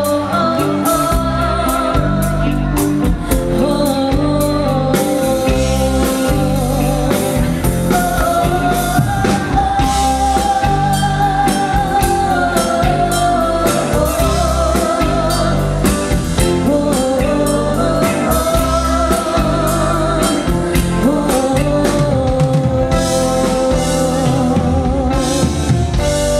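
Live rock band playing with a woman singing lead. Her voice wavers with vibrato over electric bass, electric guitar, keyboards and a drum kit keeping a steady beat.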